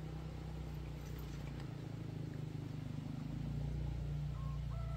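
A small engine running steadily at idle, a low even drone.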